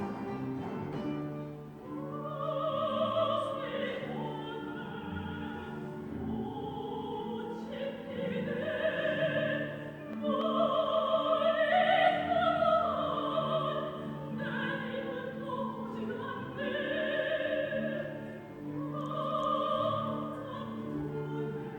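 Soprano singing long, vibrato-laden phrases over a guitar orchestra's accompaniment, the voice entering about two seconds in.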